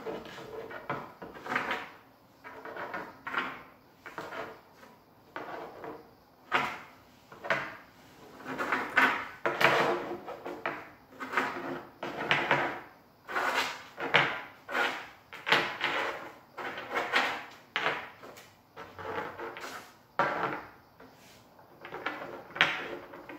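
Small stones being set down and slid one at a time across a hard tabletop: a run of irregular scrapes and clacks, about one a second.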